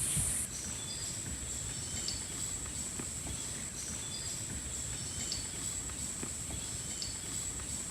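Tropical rainforest ambience: a steady high-pitched insect drone with short chirping calls repeating every half second or so. A louder, higher insect buzz cuts off about half a second in.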